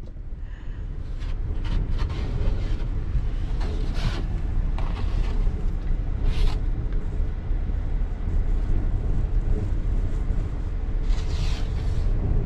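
Blizzard wind buffeting the van, heard from inside as a steady heavy rumble, with a few scattered knocks and clicks.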